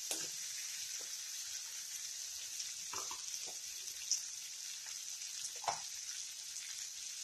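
Cubed potatoes frying in oil and spice masala in a kadai, a soft, steady sizzle. A few faint clicks stand out, the first as the spatula stirs at the start.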